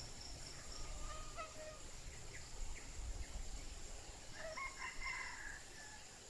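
A rooster crowing twice, faintly: a short call about a second in and a longer one around four and a half seconds in, over a steady high-pitched insect drone.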